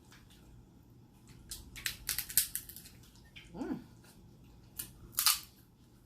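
Snow crab leg shells cracking and snapping as they are broken open by hand: a series of sharp cracks, the loudest about five seconds in.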